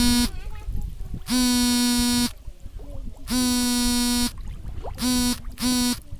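A flat electronic buzzer tone of one steady pitch sounds three times for about a second each, about two seconds apart, then twice more briefly near the end.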